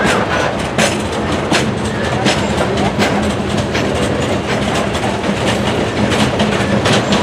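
Freight train's open-top hopper cars rolling slowly past, their wheels clicking over rail joints every second or so over a steady rolling rumble.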